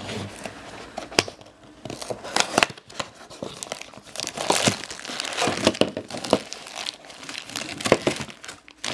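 Clear plastic bags crinkling and a cardboard box being opened, as carabiners packed in the bags are handled and pulled out.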